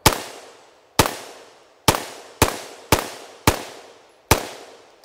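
CZ Bren 805 PS1 5.56mm pistol with a muzzle brake fired semi-automatically: about seven single shots at uneven gaps of half a second to a second. Each sharp report is followed by a ringing echo.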